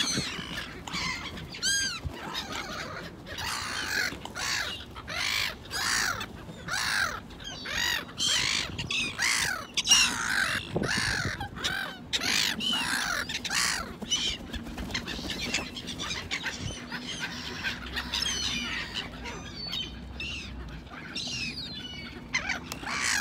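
A flock of black-headed gulls calling over and over: short calls that rise and fall in pitch, many in quick succession and overlapping, thinning out in the second half.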